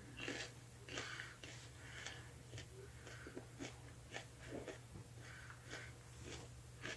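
A person biting into and chewing a raw habanero pepper: faint, irregular crunching and mouth sounds, about one or two a second.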